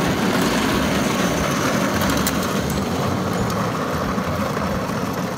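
Hard plastic wheels of a ride-on toy train rolling over asphalt: a steady rumble that gets slightly quieter toward the end as the toy is pushed away.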